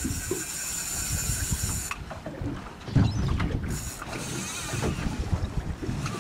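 Fishing reel's drag buzzing as a hooked false albacore pulls line off: a little under two seconds at the start and again, shorter, about four seconds in. Low wind and boat rumble under it, with a low thump about three seconds in.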